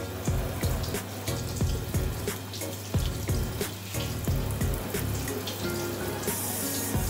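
Hand-held shower running, water spraying over a wet long-haired kitten's fur, with a brief louder hiss of spray near the end. Light background music with a steady beat plays underneath.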